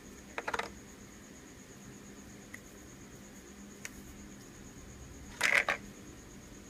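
Hard plastic Play-Doh toy pieces clicking and clattering as they are handled: a short rattly cluster about half a second in, a couple of single ticks, and a louder cluster near the end.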